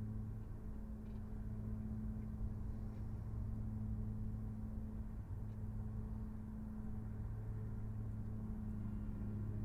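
Car engine running steadily: an even low hum over a low rumble.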